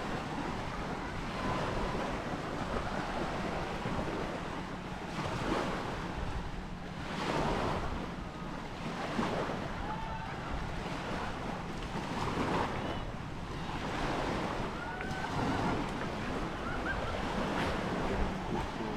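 Small sea waves washing up on a sandy beach in repeated surges every second or two, with wind rumbling on the microphone.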